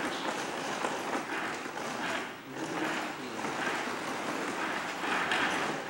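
Wooden foot-treadle braiding machine clattering as it braids twine around packs of firecrackers: repeated knocking and rattling that swells and eases every half second or so.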